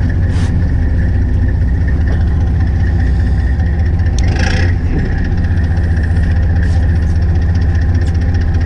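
Fishing boat's engine running steadily at low speed, a constant low drone with a thin steady whine above it. Two brief hissy noises break in, about half a second in and about four and a half seconds in.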